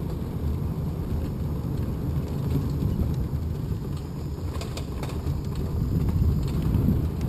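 Small battery-powered Seagrave ride-on fire truck driving along an asphalt street: a steady low rumble of its motor and tyres, with a few light clicks about four and a half seconds in.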